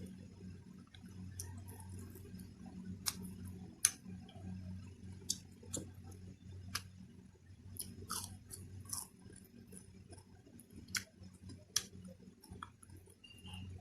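A person chewing and eating close to the microphone: irregular wet mouth clicks and small crunches, over a steady low hum.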